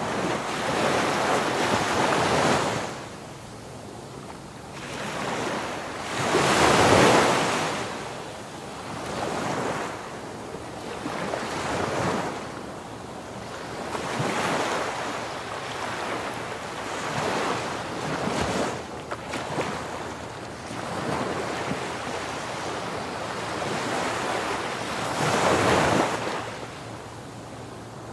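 Waves washing in: a rushing noise that swells and ebbs every few seconds, with wind on the microphone.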